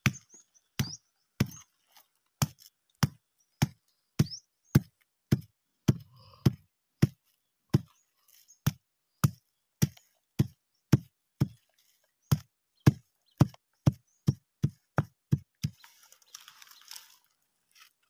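A hand-held stone pounding a piece of wood against a larger rock: a steady run of sharp knocks, nearly two a second, fraying the wood into strands for kindling. The knocking stops a couple of seconds before the end, leaving faint rustling.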